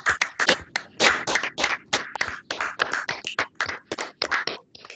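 Several people clapping over a video call: dense, irregular hand claps with a thin, band-limited sound.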